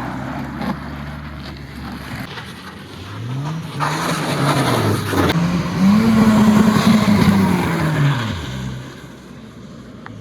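Car engine revving up and back down twice, the second rev longer and louder, over tyre and road noise.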